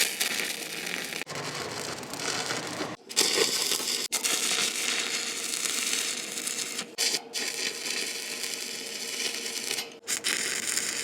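Electric arc welding on galvanised (GI) steel rectangular tube: a continuous crackling hiss, broken off abruptly by short gaps between several welding runs.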